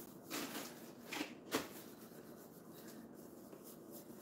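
Paintbrush bristles scrubbing chalk paint onto a wooden dresser drawer in short swirling strokes, faint, with a few louder strokes in the first second and a half.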